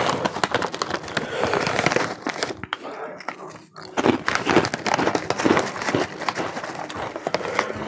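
Crinkly foil snack bag of Slim Jim Fire Fries rustling and crackling as a hand works in it, with crunchy chewing of the fries in the second half.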